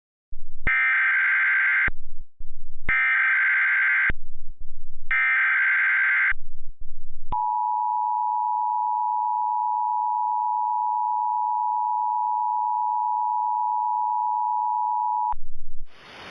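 Emergency Alert System broadcast tones announcing a tornado warning. Three bursts of rapid warbling digital data tones (the SAME header), each about a second and a half long, are followed by the steady two-tone EAS attention signal at about 853 and 960 Hz, which runs for about eight seconds and stops shortly before the end.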